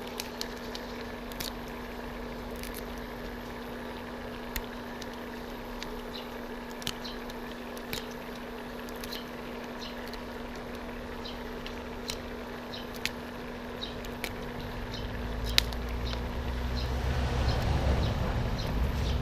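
Water at a rolling boil in a wok, a steady bubbling hiss over a constant electrical hum, with scattered small pops and ticks. A low rumble builds over the last few seconds.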